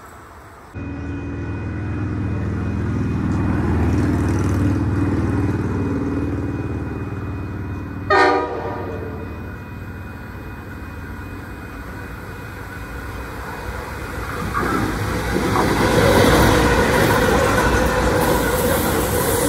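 Freight train led by locomotive 8649 approaching and passing: a low locomotive engine drone grows louder, one short horn blast sounds about eight seconds in, and near the end the locomotive and coal wagons roll past with wheels clattering on the rails.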